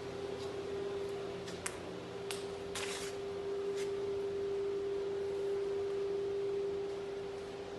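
Spindle of a 1325 ATC CNC router running with a steady high whine. A few short clicks and hisses come between about one and a half and four seconds in.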